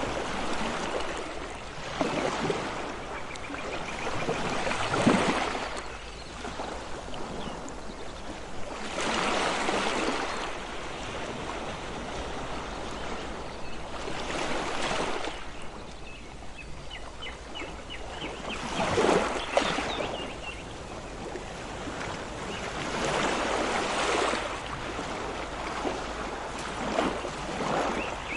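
Ocean waves breaking and washing in, a hiss that swells and falls roughly every four to five seconds, with the strongest surges about five seconds in and again about two-thirds of the way through.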